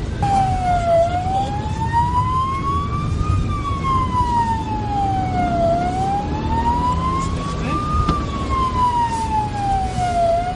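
Police car siren on a wail, its pitch rising and falling slowly about every four and a half seconds, switched on just after the start, over loud engine and road noise.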